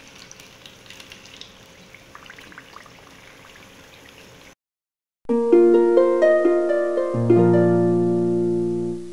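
Hot oil sizzling faintly as pastel turnovers fry, then after a brief silence a short intro jingle of plucked, harp-like notes climbing in an arpeggio, with low notes joining near the end.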